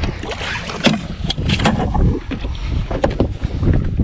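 A steady low rumble of wind and boat noise, with scattered sharp knocks and clatter on the boat.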